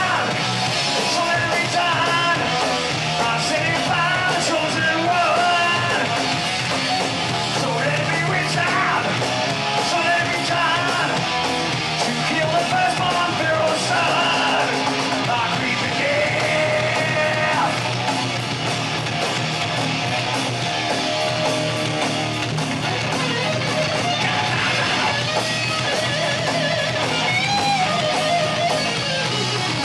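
Live heavy metal band playing a song: distorted electric guitars, bass and drums, with a singer's vocals sung and shouted into the microphone.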